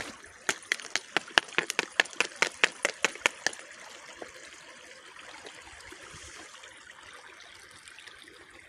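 Footsteps crunching on fresh snow as sharp crackling clicks, about four a second, stopping after about three and a half seconds. Then the steady trickle of a small stream.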